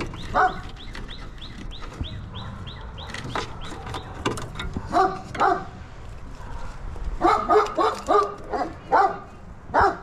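A dog barking in short bursts: one bark about half a second in, two around five seconds, then a quick run of barks from about seven seconds to near the end.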